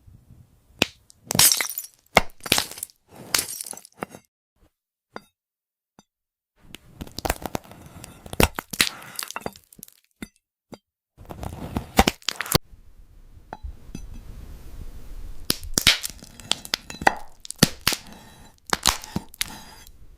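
Glass cracking and crunching, with clinks: irregular clusters of sharp cracks separated by short pauses and stretches of gritty crackle.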